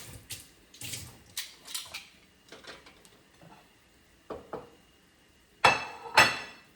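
Kitchen dishes and utensils clinking and knocking: a few light knocks, then two loud ringing clatters about half a second apart near the end.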